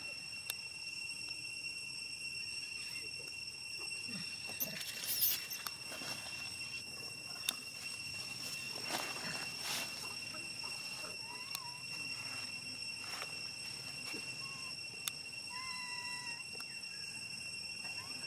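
Outdoor ambience: a steady high insect drone throughout, with a few short squeaky animal calls in the second half and brief rustling around five and nine seconds in.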